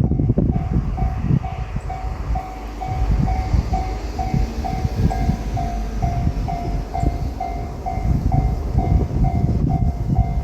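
Japanese railroad crossing bell ringing steadily, about two strikes a second, while a diesel train runs past with a loud, uneven rumble.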